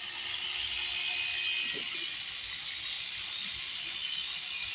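Electric shearing clippers running steadily through a sheep's fleece, a continuous high hiss.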